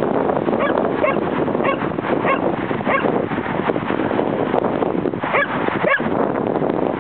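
A dog whining in short, high yips: a run of them over the first three seconds and two more near the end, over steady wind noise on the microphone.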